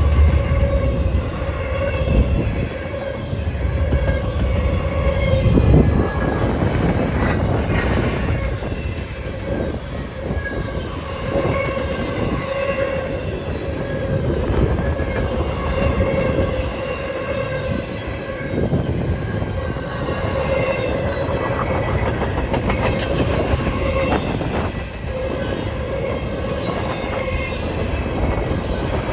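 Freight train cars rolling past: wheels clacking over the rail joints, with a steady whining tone most of the way through. Strong wind buffets the microphone, heaviest in the first few seconds.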